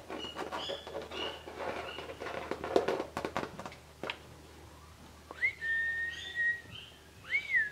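A person whistling to get a puppy's attention: a quick rising note held steady for about a second, then a second swooping note near the end. Before it come a few seconds of short clicks and high chirps.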